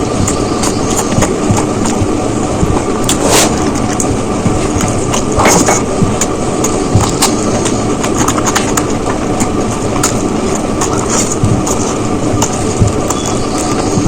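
Close-miked eating sounds: many short chewing and mouth clicks over a steady, loud rushing noise.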